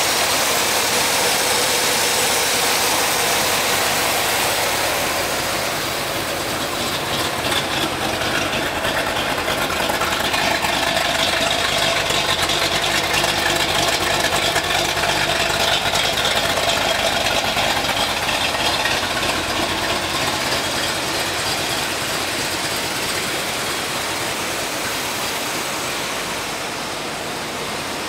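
1972 Chevrolet Corvette's V8 idling steadily, heard first at the open engine bay and then at the exhaust tip.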